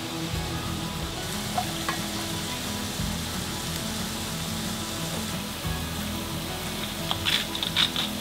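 Milk being poured into a hot butter-and-flour roux in a small enamel pan, sizzling steadily. Near the end a salt-and-pepper grinder is twisted, making a few short grinding rasps.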